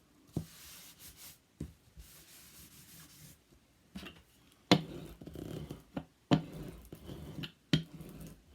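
Hands handling paper and craft supplies on a work table: several sharp taps and knocks, with paper rubbing and rustling between them.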